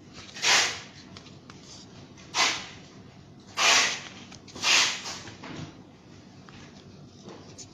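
Pages of a paper instruction booklet being turned by hand: four short papery swishes, coming closer together, within the first five seconds.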